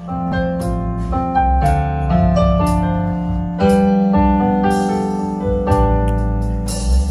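Roland electronic keyboard playing a piano-voiced melody over sustained chords through a stage sound system, starting abruptly; a hissy wash joins near the end.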